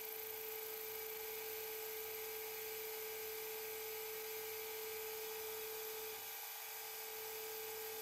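Metal lathe running steadily with a constant whine while turning the outer diameter of a collet chuck blank.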